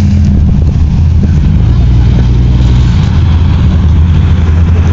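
Pickup truck engine running in thick mud, a loud low drone whose pitch shifts up and down in steps.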